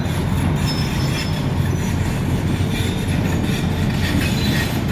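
Train running on rails, a steady heavy rumble with thin metallic wheel squeals coming and going.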